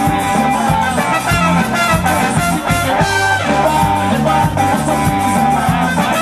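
Live ska band playing a song at full volume: electric bass line, guitars, horns and drum kit, with a singer at the microphone.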